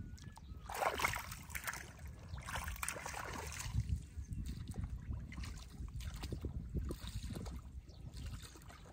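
Water splashing and sloshing as a person wades through a shallow pond: two louder splashy stretches in the first four seconds, then fainter, scattered splashes, over a low steady rumble.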